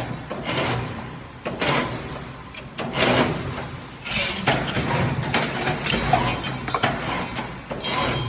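Automatic stirrup bending machine running: a steady motor hum under repeated metallic knocks and clanks at irregular spacing, about one every half second to a second, as it feeds and bends steel rebar.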